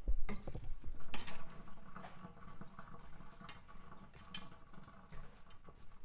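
Wooden spoon stirring freshly rinsed diced cucumbers and onions in a metal colander in a steel sink, with clacks and knocks against the colander that are loudest in the first second and a half. Rinse water drains and drips through the colander.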